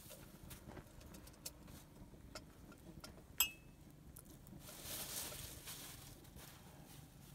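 Faint scattered taps and crackles with one sharp, briefly ringing clink about three and a half seconds in, as a small metal teapot is pushed with a stick beside an open wood fire.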